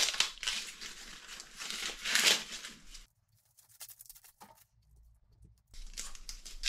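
Husks being torn off fresh sweetcorn cobs by hand: papery leaves ripping and rustling, with the loudest tears at the start and about two seconds in. It falls almost silent for a couple of seconds, then the rustling resumes near the end as the silk is pulled away.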